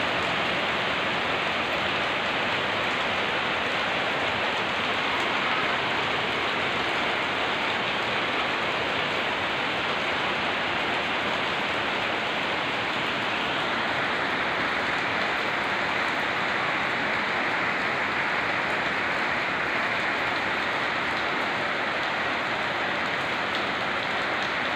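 Steady rain falling on wet brick paving and a puddle.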